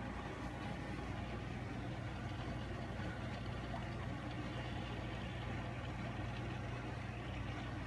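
Aquarium air pump humming steadily, with the bubbling of air lines and airstones in the tank.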